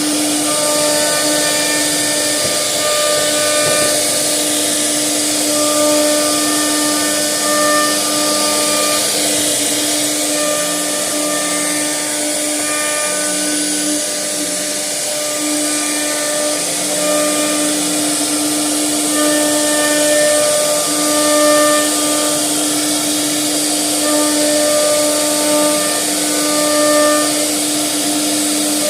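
CNC wood router carving a wooden door panel: a steady spindle whine over a constant hiss, with higher tones coming and going every few seconds as the machine moves.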